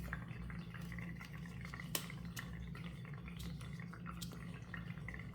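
Tarot cards being handled: scattered soft clicks and taps with one sharper click about two seconds in, over a steady low electrical hum.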